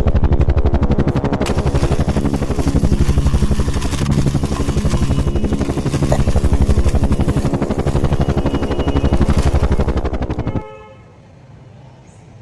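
Electronic toy-vehicle sound effect: a rapid pulsing engine or rotor noise over steady tones. It cuts off suddenly about ten and a half seconds in, followed by a short horn-like beep.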